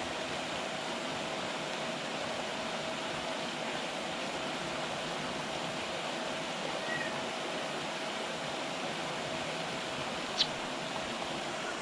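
Steady rushing of a pond's surface aerator splashing water, with a faint steady hum under it; a single short click about ten seconds in.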